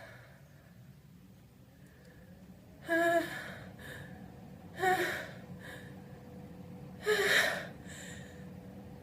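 A person's voiced, gasping inhales, three of them about two seconds apart: the build-up to a sneeze.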